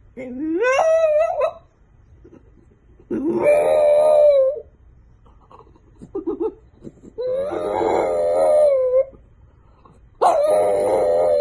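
A French bulldog howling: four drawn-out howls with short pauses between them, the first sliding up in pitch.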